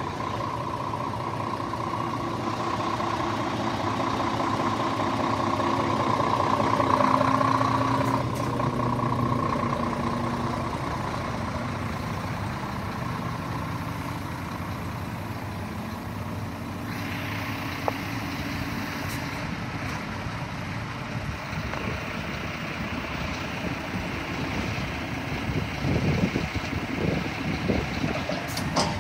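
Scania R450 truck's diesel engine idling steadily, with a few irregular knocks near the end.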